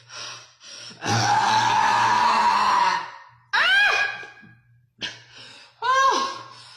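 A long, loud burp lasting about two seconds, starting about a second in, followed by two short high-pitched vocal sounds that rise and fall in pitch.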